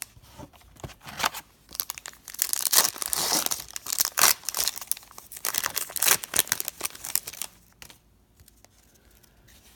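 A foil trading-card pack wrapper being torn open and crinkled by hand, a run of crackling tears and crumpling.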